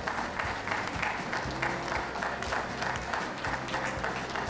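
Audience applauding steadily: dense, irregular clapping throughout.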